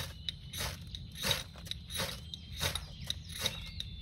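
Knife scraping in short, evenly spaced strokes, about three every two seconds, to light birch bark tinder. The bark is smoking and a small flame is just catching, so the fire is not yet going.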